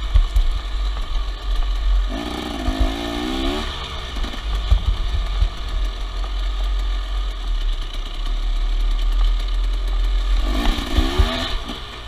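KTM enduro dirt bike engine running under way on a dirt trail, with wind buffeting the camera microphone. The revs climb in quick rising pulses twice, a couple of seconds in and again near the end.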